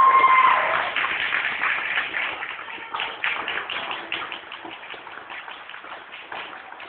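A child's sung closing note held for under a second, then a small audience clapping, dying away.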